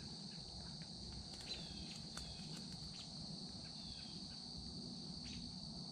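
Faint, steady high-pitched drone of insects, with a few brief chirps and clicks over a low rumble.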